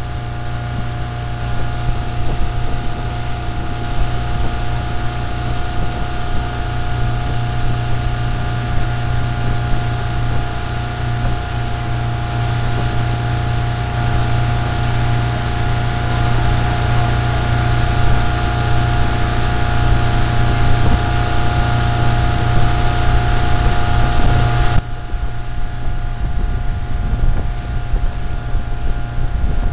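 Motorboat engine running steadily at towing speed, with a steady rushing hiss over it. About twenty-five seconds in, the hiss drops abruptly while the engine keeps running.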